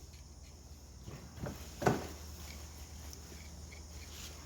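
Light metallic clicks from a Toyota 22RE connecting-rod cap and its nuts being refitted by hand: a faint tap about a second and a half in, then a sharper click just before two seconds, over a steady low hum.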